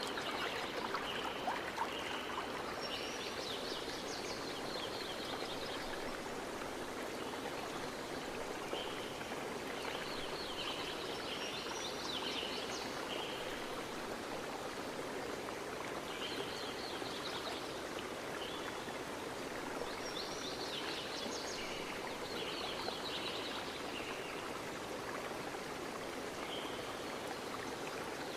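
Steady rush of flowing water from the waterfall and its stream, with birds chirping in short bouts every few seconds.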